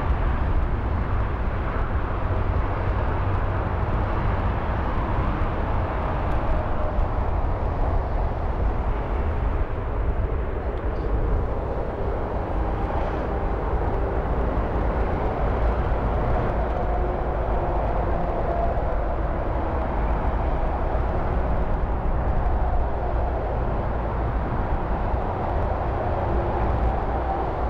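Jet engines of taxiing airliners running at low power: a steady rumble with a faint, even whine.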